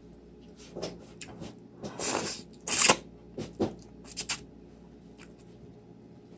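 A few light clicks and knocks with short rustling scrapes, the loudest near the middle, from things being handled during a meal.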